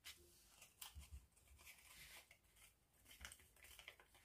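Faint rustling and light clicks of folded colour paper as glued origami pieces are handled and pressed together.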